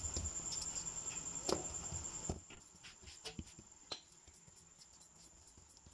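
Floured hands pressing and patting a ball of paratha dough flat on a plastic board: soft pats with a few light taps, quieter after about two seconds.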